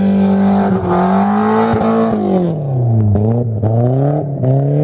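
A car engine running at high revs, its pitch holding, then dropping and climbing again several times as the throttle is lifted and reapplied.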